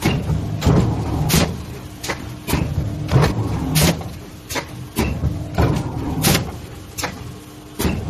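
Automated hot-forging line with walking-beam transfer running: a string of sharp knocks about every two-thirds of a second, each with a short low rumble, over a steady machine hum.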